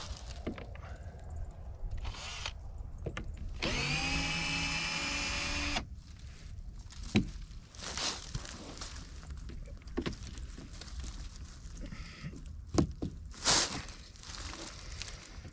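Dry weed stems being cut and pulled with a small handheld cutting tool: a few sharp snaps and clicks with rustling of dry stems. About four seconds in, a small electric motor whirs for about two seconds, rising quickly in pitch, holding steady, then cutting off sharply.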